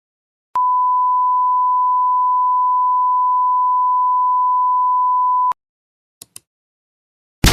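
A steady pure beep tone at about 1 kHz, held unchanged for about five seconds and cutting off abruptly. A moment later come two faint, very short high ticks, and right at the end a loud blast-like sound effect begins.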